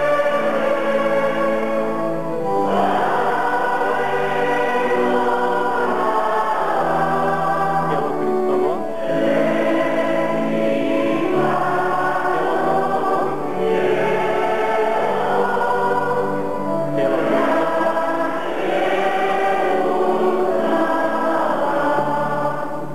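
A choir singing a slow hymn in long held phrases, each a few seconds long.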